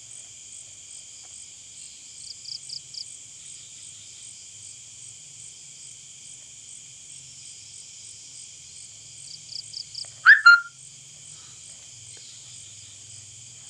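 Steady night insect chorus of high trilling with a regular pulse about three times a second, and short bursts of chirps twice. About ten seconds in, a loud, short call falls sharply in pitch.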